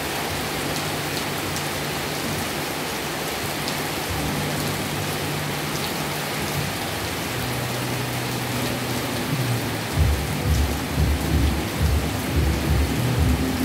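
Rain falling steadily. About ten seconds in, a low, uneven rumble of thunder comes in and keeps rolling.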